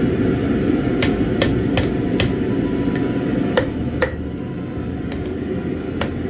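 Light hammer taps on metal: four quick strikes, two more a moment later, and a single last tap near the end, over a steady low rumble.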